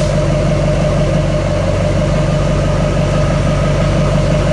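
Diesel engine idling steadily, heard close to the tailpipe.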